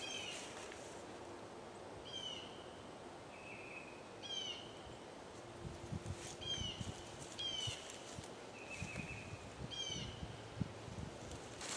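A bird calling over and over in the woods, a short falling call alternating with a flat held note every second or two, with soft low thuds of footsteps through the middle and latter part.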